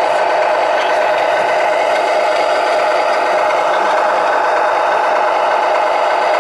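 Radio-controlled model tractor towing a trailer past at close range: a steady mechanical hum with rattling from its drive and trailer.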